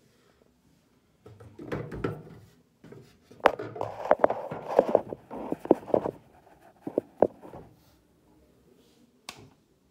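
Phone handling noise: rubbing and scuffing on the microphone with many sharp clicks and knocks as the phone is held and moved about, then one more knock near the end.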